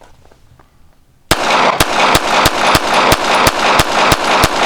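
Ruger Security-380 pistol firing .380 ACP rounds in rapid fire, a steady string of shots about four a second that starts about a second in. The string runs on without a stoppage.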